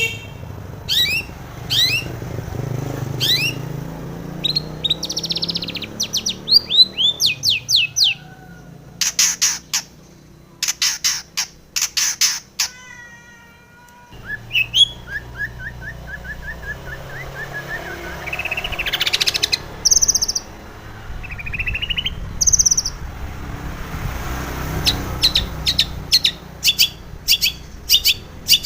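Long-tailed shrike (cendet) singing a busy, varied song of quick upward-sweeping whistles, runs of sharp rapid notes and short trills, with mimicked phrases worked in.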